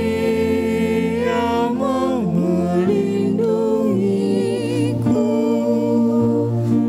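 Slow worship song sung with long held notes that waver with vibrato.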